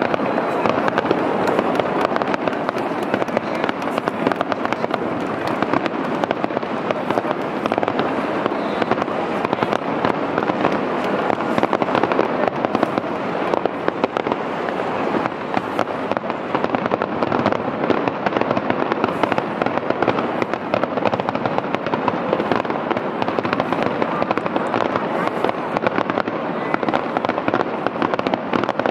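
Aerial fireworks shells bursting in a dense, continuous barrage, many bangs and crackles overlapping with no pause between them.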